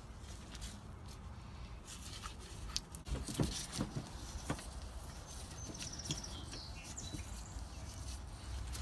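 Small metallic clicks and taps as a wrench tightens the centre fitting of a fuel sump plate onto the bottom of a truck's fuel tank, with a few louder knocks about three to four and a half seconds in.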